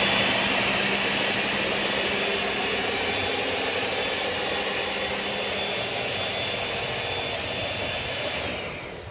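Countertop pitcher blender running steadily as it purees a thick avocado crema, then switched off: the motor noise falls away near the end.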